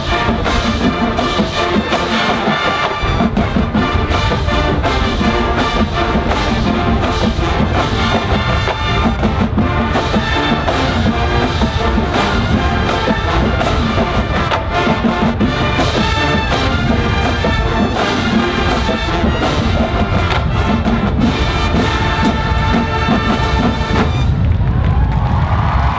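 Loud brass-led music with percussion playing steadily. About two seconds before the end the music stops and a crowd starts cheering and applauding.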